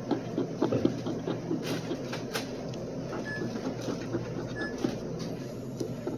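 A coin scraping the latex coating off a paper scratch-off lottery ticket in quick back-and-forth strokes, with a few louder scrapes about half a second in.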